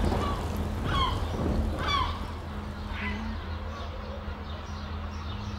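Birds calling: short curved calls about a second apart that fade out after about three seconds, over a steady low drone.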